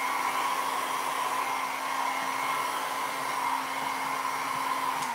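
Hand-held hair dryer running steadily: a rush of air with a steady hum and whine.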